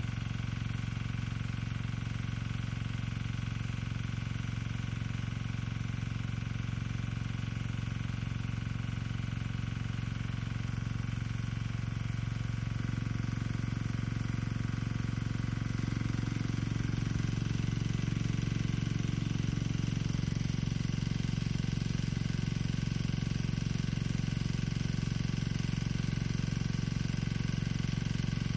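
Engine of the irrigation water pump feeding a rain gun sprinkler, running steadily at constant speed as a low drone with a fast even beat. It grows a little louder about halfway through.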